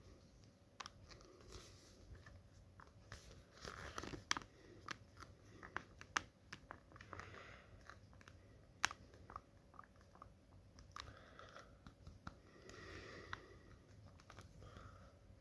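Faint, irregular clicks and taps with short bursts of crinkly rustling: small parts and plastic being handled during work on a road-bike saddle.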